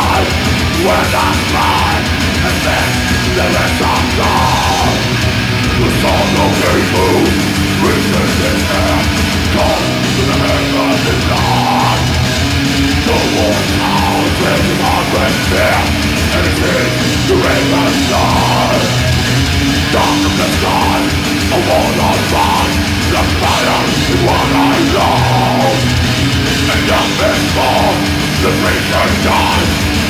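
Live melodic death metal band playing loud: heavily distorted guitars and drums with a fast, pounding kick-drum pulse under a deep growled vocal.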